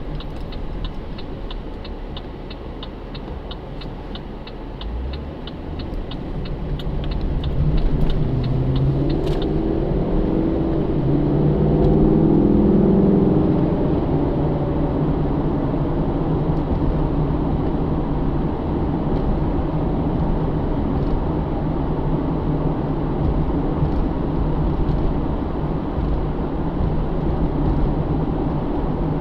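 The 6.0-litre V8 of a 2009 Pontiac G8 GT, heard from inside the cabin over road rumble. For about the first nine seconds a turn-signal indicator ticks about three times a second. The engine then rises in pitch and gets louder as the car accelerates, peaking around twelve to thirteen seconds in, and afterwards settles into a steady cruise.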